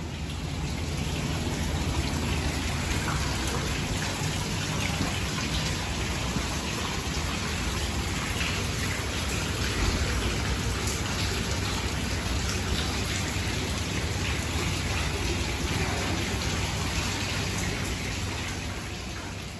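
Water falling and splashing steadily in an indoor atrium garden's water feature, an even rain-like hiss, with a steady low hum beneath it.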